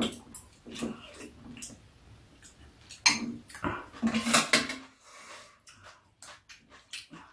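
Metal spoons and chopsticks clinking and scraping against ceramic bowls and a plastic food container while eating: a run of sharp clicks, busiest and loudest about three to four and a half seconds in.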